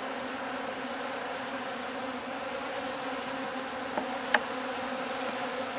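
Honey bees buzzing steadily in a dense hum around an open hive box. Two light clicks come a little after four seconds in.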